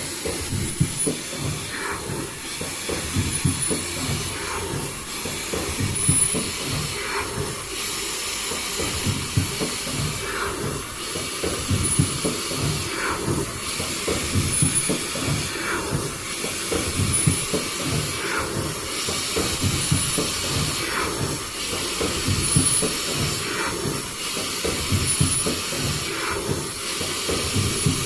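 Automatic KN95 mask production line running: a steady machine hiss and clatter, with a short repeating sound about every two seconds as the machine cycles.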